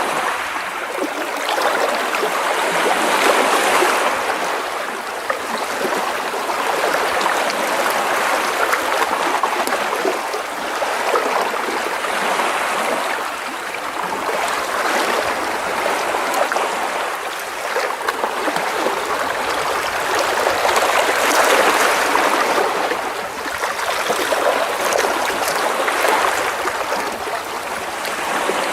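Small sea waves lapping and splashing against rocks close by, with water trickling and gurgling among them. The sound swells and eases every few seconds as each wave comes in.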